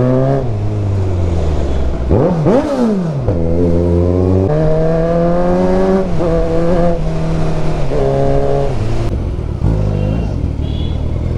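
Motorcycle engine under way, its note rising and falling with the throttle. There is a quick rev up and back down about two seconds in, then several steps in pitch as the gears change.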